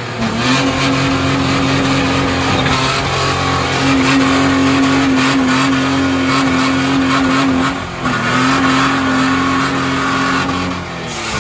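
Car engine held at high revs at a steady pitch while the driven wheel spins, with wide tire-and-road noise over it. The revs dip briefly twice, once right at the start and once about eight seconds in, then start to fall near the end.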